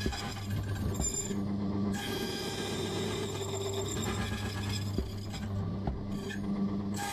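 Silca Lancer key-cutting machine running with a steady motor hum while its cutter grinds a key blank as the carriage traces the original key. The rasping of the cutter drops out briefly twice.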